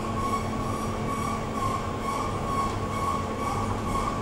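Inclined elevator car running along its sloped shaft: a steady mechanical hum and rumble with a constant high whine and a faint, regular pulsing.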